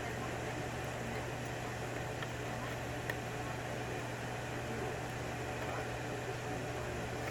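A steady low hum with hiss underneath a few faint, sparse ticks of a lock pick working the pins of a Yale pin-tumbler mortise cylinder.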